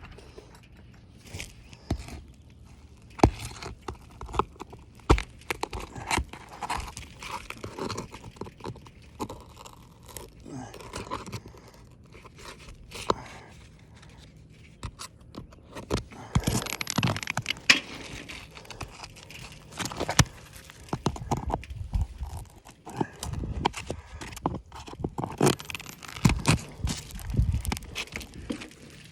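Asphalt roof shingles being pried up and worked loose by hand: irregular sharp clicks and knocks mixed with crunching and scraping of the shingle, getting busier in the second half.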